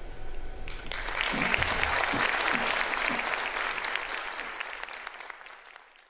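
The last held note of flute and piano dies away, then an audience bursts into applause under a second in. The clapping swells and then fades out near the end.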